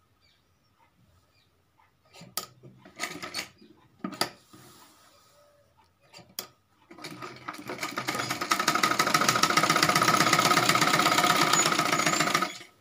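Sewing machine stitching down a pleat in the fabric: a few short clicks and rustles of handling, then a little past halfway the machine starts, builds up speed and runs fast and steady for about five seconds before stopping abruptly near the end.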